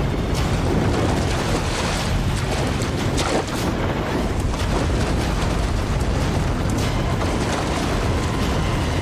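Dramatised shark attack on an inflatable life raft: dense churning water and low rumble with several thuds of the shark hitting the raft, under dramatic music.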